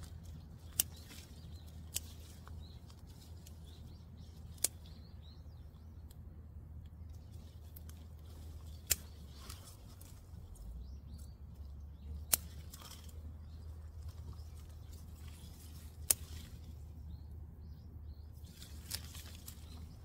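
Hand scissors snipping the tops off chili pepper plants: a sharp snip every few seconds, about seven in all. Faint bird chirps in the background.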